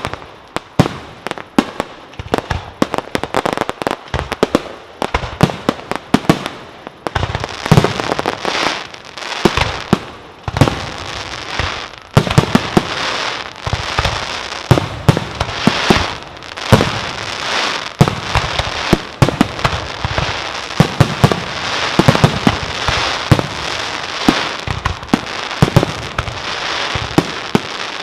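Fireworks display: a rapid barrage of loud bangs from bursting shells, many in quick succession. From about a quarter of the way in, a continuous crackling fills the gaps between the bangs.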